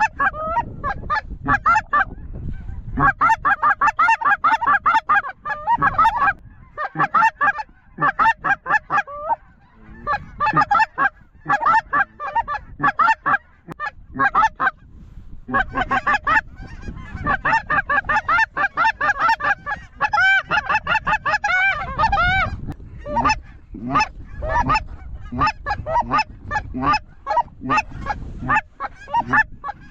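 A flock of geese calling overhead: a dense chorus of rapid, overlapping honks and yelps in long bursts with short breaks.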